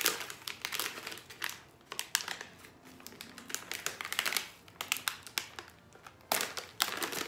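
A crinkly cookie wrapper being pulled and torn open by hand, crackling in irregular bursts.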